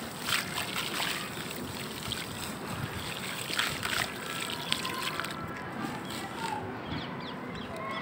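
Dry red dirt crumbling in the hands and falling into a basin of water, a rough crumbly rustle with soft splashing. It stops about five seconds in.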